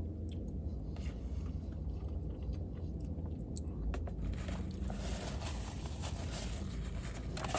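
A person chewing a mouthful of mac and cheese, with scattered small clicks, over a low steady hum.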